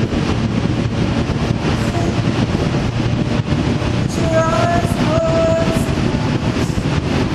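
Steady running noise of a road vehicle on the move, engine and wind together, with two short higher-pitched tones about four and five seconds in.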